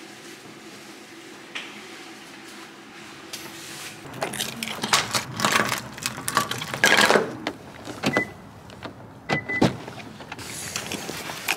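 A steady low hum, then keys jangling and clicking as a front-door deadbolt is locked with a key. Two short beeps follow, and a car door is opened near the end.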